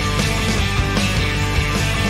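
Rock music with a steady drum beat, laid over the ride footage as a soundtrack.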